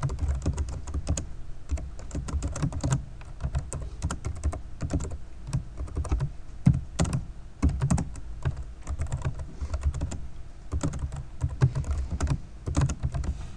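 Typing on a computer keyboard: quick irregular runs of keystrokes with brief pauses between them.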